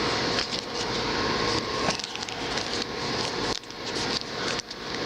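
Trading cards being handled and shuffled by hand: continuous rustling and sliding with many light clicks of card against card.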